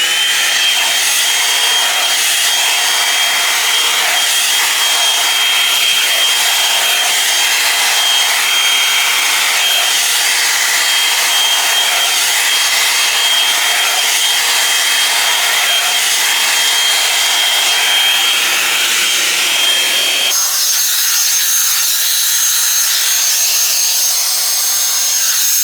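Drybar blow-dryer running steadily: a loud rush of air with a thin high motor whine. About twenty seconds in the sound changes abruptly to a higher whine with less low rush.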